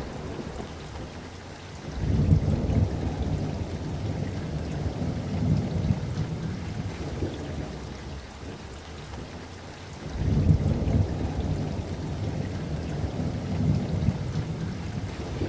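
Thunderstorm: steady rain with rolling thunder, one long rumble starting about two seconds in and another about ten seconds in.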